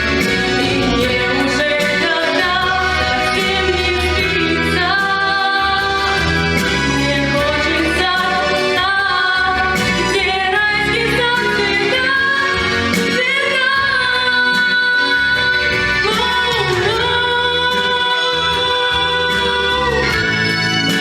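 A woman singing a song over a backing track, with long held notes.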